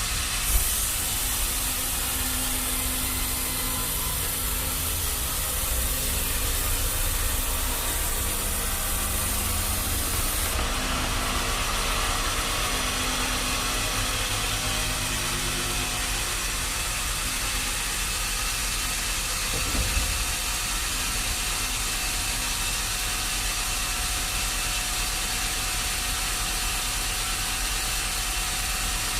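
Sawmill machinery running steadily, with a high hiss that stops about ten seconds in. There is a sharp knock near the start and another about twenty seconds in.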